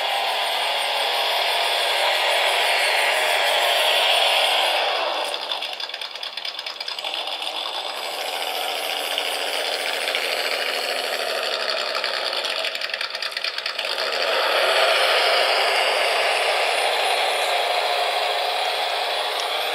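Small electric motor and gear drivetrain of a QX4 1/18-scale mini rock crawler whining as it drives across carpet. The pitch falls as it slows about five seconds in and rises again as it speeds up near fourteen seconds.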